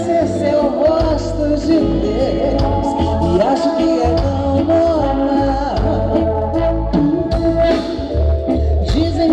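A woman singing lead into a microphone over a live soul band, with a strong bass line and steady drums.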